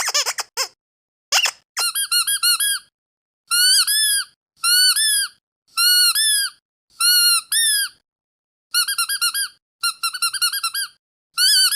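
Squeaky dog toy squeezed over and over: groups of high squeaks split by short silences, quick flurries at the start and near the end, and about one rising-and-falling double squeak a second in between.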